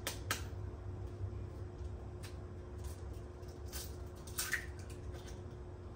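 A few separate sharp clicks and taps of a fork and egg against a plastic container as an egg is cracked and stirred, over a steady low hum.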